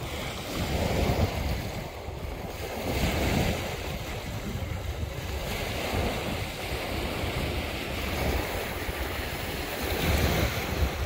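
Lake waves washing onto a rocky shore, swelling and easing a few times, with wind buffeting the microphone.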